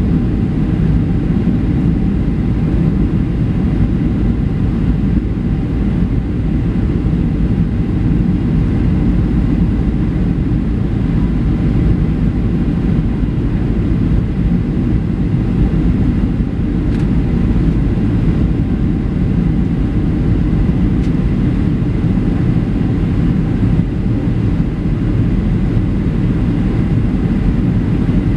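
Steady cabin noise inside a Boeing 737-300 descending toward landing: its CFM56-3 turbofan engines and the airflow past the fuselage make an even, low rumble.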